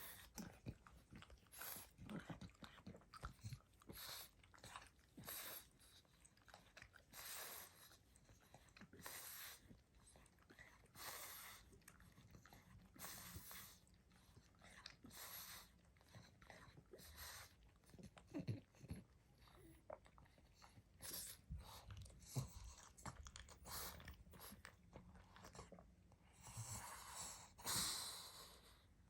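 Pug snoring and snuffling in its sleep: soft, noisy breaths about every two seconds, with many small clicking smacks between them, and a longer, louder breath near the end.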